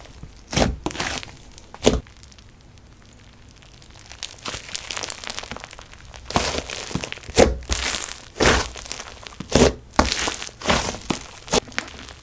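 Slime being pressed, folded and stretched by hand, giving sharp sticky pops, clicks and crackles. There are two loud pops early, a short quieter lull, then a steady run of pops and crackles.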